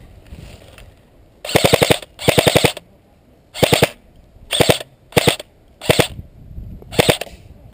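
M4-style airsoft rifle firing on full auto in quick bursts: two longer bursts of about half a second, then five short bursts, each a fast run of sharp shots.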